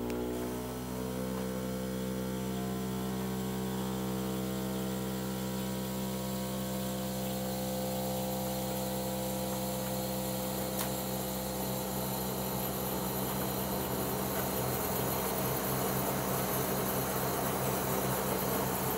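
Outdoor air-conditioning unit running on rigid legs on a plywood base, which passes its vibration on: a steady hum of several tones with a fan hiss. The hum climbs in pitch as the unit spins up and settles about a second in; the hiss grows slightly later on.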